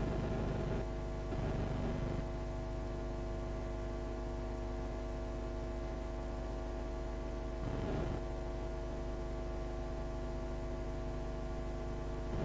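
Steady electrical mains hum in several held tones, with two brief faint noises, one about a second in and one about eight seconds in.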